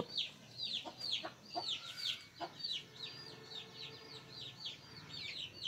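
Chickens in the background: a steady run of high, falling peeps, several a second, with a few short clucks about a second in and a longer low call from about two and a half to five seconds in.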